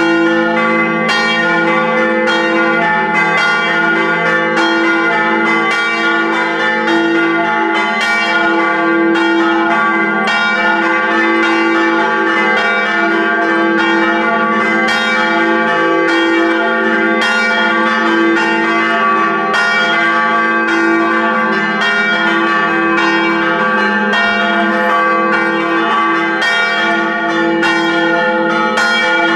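Festive peal of several church bells in a bell tower. Bells of different pitch are struck in quick succession, and their tones overlap in a continuous ringing.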